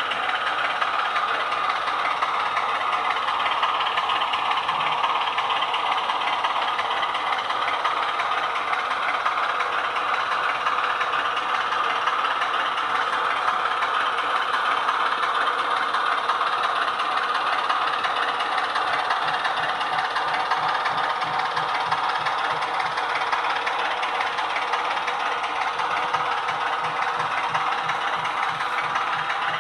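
Factory sound decoder in a Roco H0 model of the ČSD T752 diesel locomotive playing a steady diesel engine running sound through its small speaker as the model runs along the track. A low regular beat joins in during the second half.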